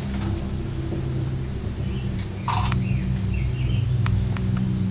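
Steady low hum of a cable car gondola in motion along its cable, heard from inside the cabin. A few faint short high chirps and a brief hiss come about halfway through.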